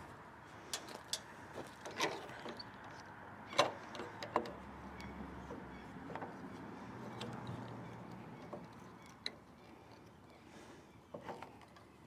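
Scattered light knocks and clicks, the sharpest about 2, 3.5 and 4 seconds in, as XL log clamps are handled and fitted to a log on a chainsaw mill's log bed.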